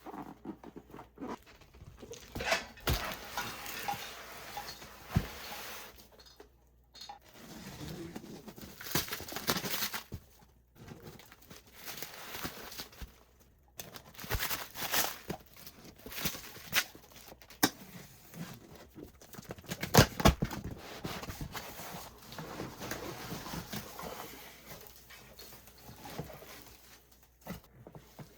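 Cardboard boxes and firework packaging being handled and unpacked by hand: an irregular run of knocks, scrapes and rustles, with one louder knock about two-thirds of the way through.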